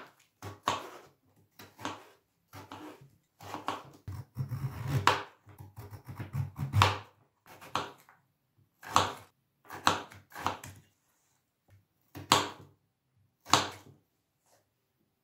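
Kitchen knife cutting raw peeled potato into cubes on a plastic cutting board: a run of separate knife strokes, irregularly spaced at about one a second, with a denser stretch of cutting in the middle. The strokes stop about a second before the end.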